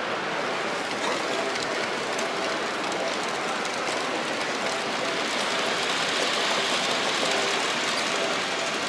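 H0-scale model trains running on the layout's track, a steady rolling rattle of small wheels on rails over the background noise of an exhibition hall. It grows a little louder about halfway through.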